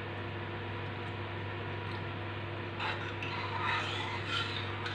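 Steady low background hum, with soft scraping from a steel ladle stirring coconut milk into jaggery syrup in a stainless steel pan, starting about three seconds in.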